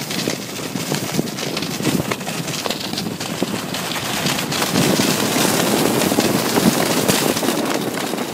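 Skis running through deep powder snow, a continuous hiss of snow broken by irregular crunches, growing louder partway through.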